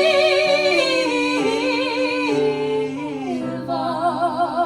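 A singer holds a long note with vibrato, then sings the word "live" near the end, over piano chords that change about every second.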